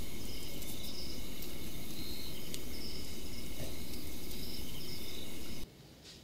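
Night outdoor ambience of insects chirping in repeated short trills over a steady low rumble. It cuts off sharply a little before the end, leaving quiet room tone.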